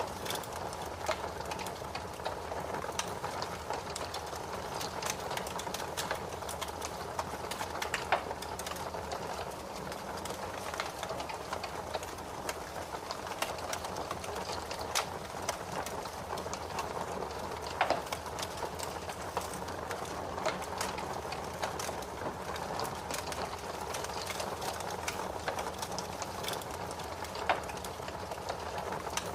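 Fire crackling in a fireplace: a steady hiss with frequent small crackles and a few louder pops, about ten seconds apart.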